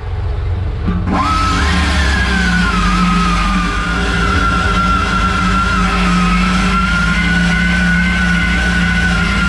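A pneumatic tire-repair tool, such as an air drill or tire buffer, starts about a second in: its whine rises sharply, overshoots, then settles and runs steadily with a hiss of exhaust air. A steady low engine or compressor hum runs underneath.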